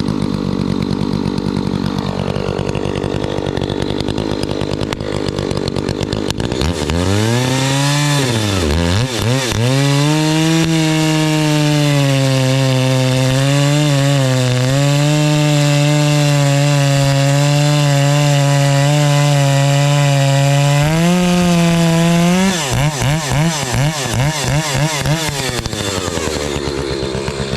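Two-stroke chainsaw idling, then throttled up about six seconds in and held at full throttle as it cuts hardwood, its pitch sagging slightly under load. Near the end it revs up and down a few times and drops back to idle.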